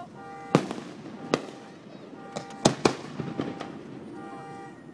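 Aerial fireworks bursting close overhead: several sharp bangs at irregular intervals, one about half a second in, another just over a second in, and a quick cluster of three near the middle.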